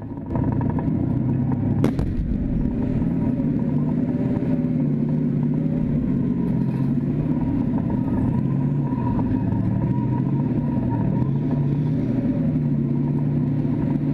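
T-72 tank's V-12 diesel engine running steadily as the tank moves, with one sharp crack about two seconds in.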